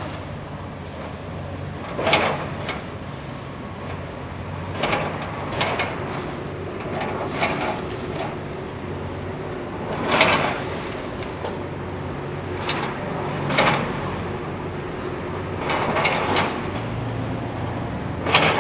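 Demolition excavator's diesel engine running steadily while a wood-frame house is torn apart, with repeated cracking and splintering of timber every two to three seconds.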